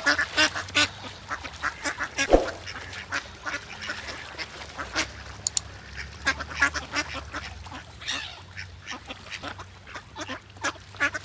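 Ducks quacking over and over in quick, short calls, with a single sharp thump about two seconds in.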